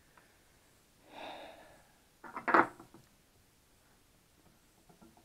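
A breathy exhale, then a short cluster of sharp knocks and clicks: handling noise as tools are moved on the workbench.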